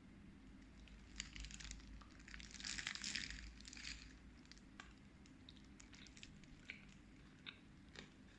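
A person biting into a chicken burger and chewing: crunching and crackling that thickens into a dense spell about two to four seconds in, then scattered soft clicks as the chewing goes on.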